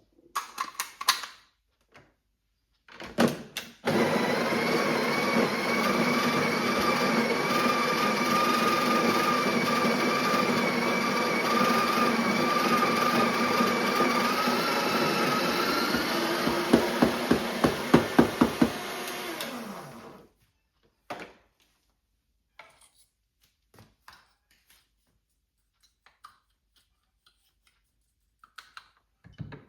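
Electric coffee grinder grinding espresso beans: a steady motor whine that rises in pitch and turns rattly as the last beans go through, then spins down and stops. A few clicks and clacks of handling come before it and small taps after.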